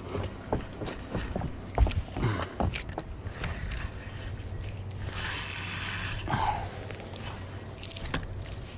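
Spinning reel being cranked, its handle and gears clicking and rattling as the line is worked against a snag in a submerged tree limb, with a brief hiss about five seconds in.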